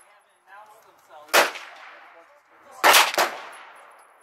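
Gunshots on an outdoor shooting range: one shot about a second and a half in, then two more in quick succession about three seconds in, each trailing off.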